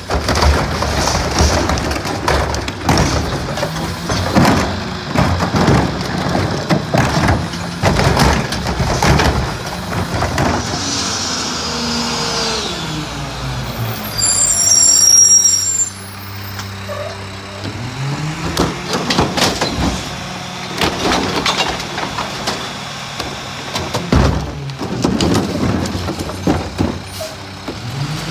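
Mack MRU garbage truck with a McNeilus rear-loader body at work, with its diesel engine running throughout. Repeated knocks and bangs come from carts and the hopper. About halfway through the engine revs down and then back up, with a short hiss and whistle of air brakes between. Knocking picks up again near the end as the truck moves off.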